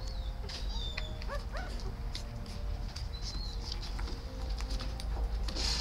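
Newborn puppies nursing on their mother, giving a few short, high squeaks, several of them rising in pitch, over a steady low hum.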